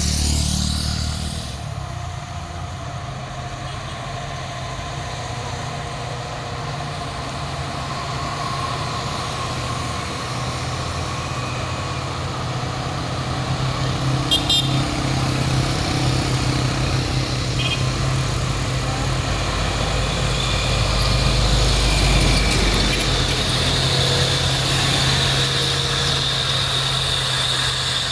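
Engines of heavy trucks and buses pulling up a steep hill, a steady low drone that grows louder and peaks about two-thirds of the way through.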